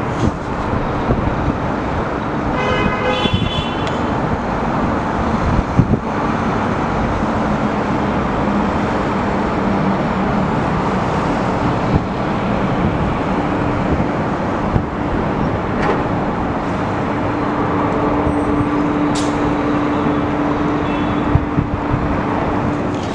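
Wind buffeting the microphone over a steady engine drone, with a short horn-like toot about three seconds in.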